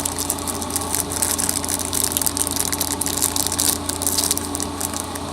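Candy bar wrapper crinkling and crackling as it is torn open and peeled back, over a steady low hum.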